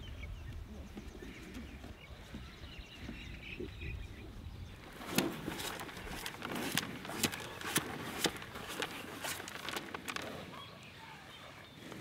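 Cows eating feed out of plastic tubs close by: irregular crunching, clicks and knocks of muzzles and teeth, starting about five seconds in. Before that, a low steady rumble.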